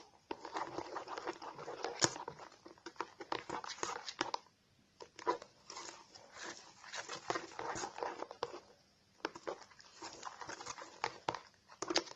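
Clear glue and shaving foam being stirred together into slime: irregular, sticky, wet squelching and clicking, with a couple of brief pauses.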